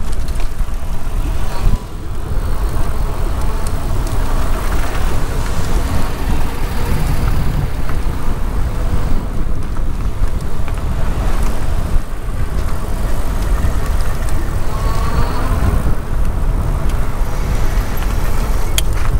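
Steady wind and road noise from riding an e-bike through slow car traffic: a constant low rumble with passing car sound.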